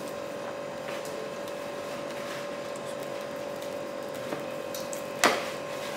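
Hands squishing spice marinade into raw chicken pieces in a plastic tub, over a steady electric hum. One sharp knock comes about five seconds in.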